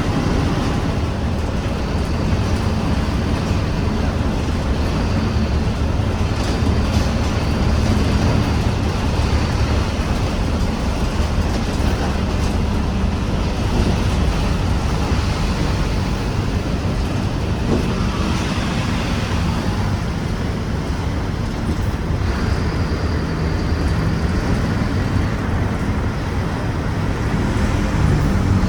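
Diesel engine of a Mercedes-Benz OF-1721 city bus running steadily under way, with road noise. A faint high whine comes and goes above the engine note.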